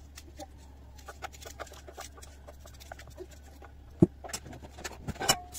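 A small kitchen knife clicking as it cuts a peeled onion held in the hand, the pieces dropping into a plastic bowl: a run of light, irregular clicks, with one sharp knock about four seconds in. A steady low hum runs underneath.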